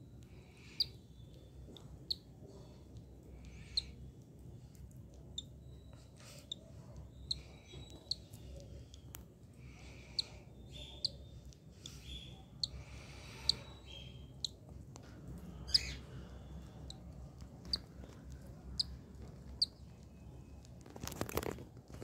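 Newly hatched cockatiel chick peeping: short, high, thin peeps, about one a second. A brief rustle of handling comes near the end.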